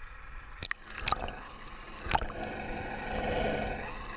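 Water gurgling and sloshing close up around the outboard's leg and its rear hydrofoil at the surface, with three sharp knocks in the first half.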